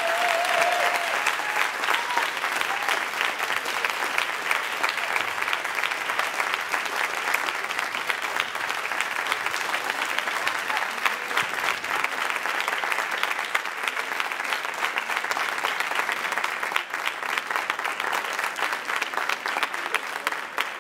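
Audience applauding: a large crowd clapping steadily, easing off slightly near the end.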